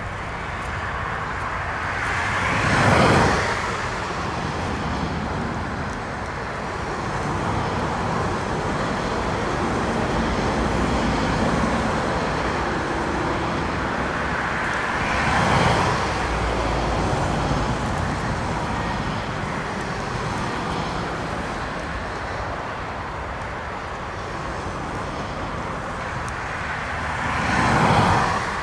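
Road traffic passing by three times, each vehicle swelling and fading over a couple of seconds: about 3 s in, about 15 s in, and near the end. Underneath is a steady rush of storm wind.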